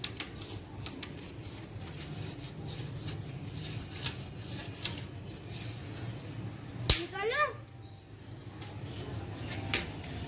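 Long wooden stick tapping and knocking against a brick wall, scattered sharp taps with one hard crack about seven seconds in. Right after the crack comes a child's brief vocal cry.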